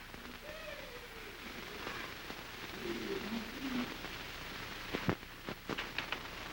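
Steady hiss of an early sound-film soundtrack. A faint wavering voice sounds in the first few seconds, and several sharp clicks come near the end.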